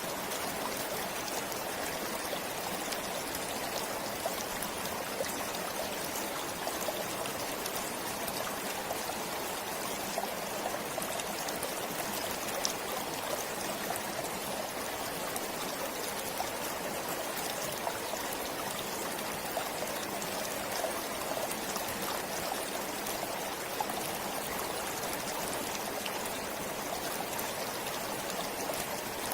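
Forest stream flowing steadily, a constant rush of water with small splashes and trickles.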